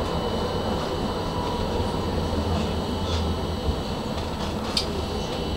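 Tram running along street track from inside the driver's cab: a steady low rumble of the wheels and running gear, a faint high steady whine, and a few short sharp clicks about three and again about five seconds in.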